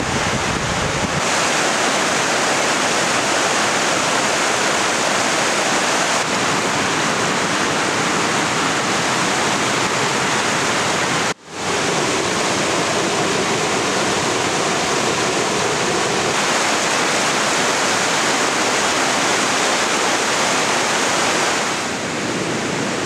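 Whitewater rapids of the North Fork Quinault River rushing steadily over boulders, with a split-second dropout about eleven seconds in.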